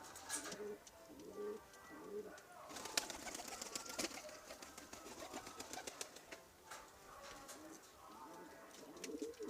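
Domestic pigeons cooing in short low calls, with a stretch of scattered clicks and rustling about three to four seconds in.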